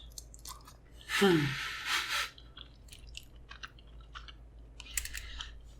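Close-miked chewing of a chicken wing, with wet smacking and small clicking mouth sounds. About a second in there is a louder breathy burst with a short falling voiced note.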